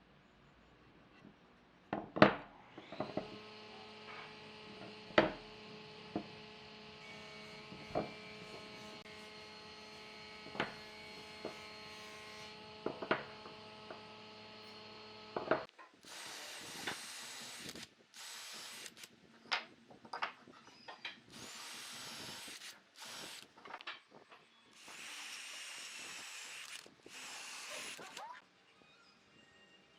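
A power tool runs steadily at one pitch, with sharp knocks every second or two, and stops about halfway through. After it come short hissing bursts that switch on and off several times.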